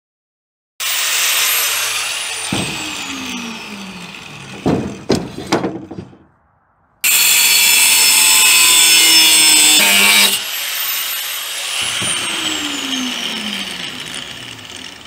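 Angle grinder with a cut-off wheel cutting steel plate, then whining down in pitch as the wheel coasts to a stop after the trigger is let go. A few metal clanks follow as the steel pieces are handled, then a second loud steady cut ends in another falling spin-down whine.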